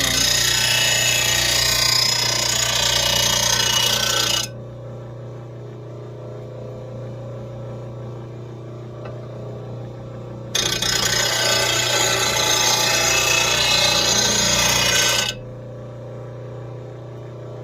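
RBG-712 lawn mower blade sharpener grinding a mower blade's edge in two passes, each a loud, harsh grinding lasting about four to five seconds, the second starting about ten seconds in. A steady low hum carries on between the passes.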